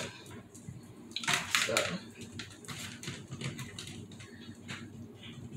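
Light clicks and knocks of kitchen items being handled on a counter, with a short cluster of clatter about a second and a half in. The hand mixer is not running.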